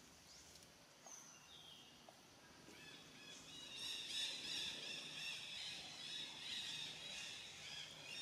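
Small birds chirping and twittering, a few single calls at first, then a busy run of short, repeated high chirps that gets louder about three seconds in.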